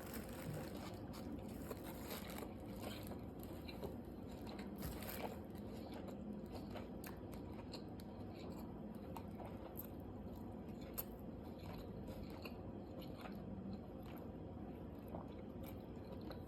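A person biting into and chewing a chicken taco, close to the microphone, with many small, moist mouth clicks.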